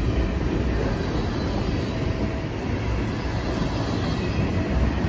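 Freight train of covered hopper cars and tank cars rolling past at close range: a steady rumble and rattle of steel wheels on the rails.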